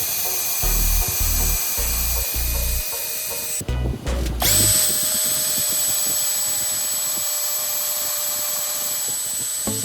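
Small electric power tool running at a steady high whine. It cuts out a little over three and a half seconds in, then spins back up to speed about a second later and runs steadily again.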